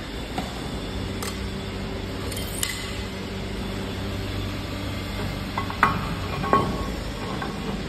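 Steel machine parts clinking and knocking as a long shaft is worked into a metal housing by hand with a bar: a few light clicks, then two sharper clinks that ring briefly, near the end. A steady low hum runs underneath.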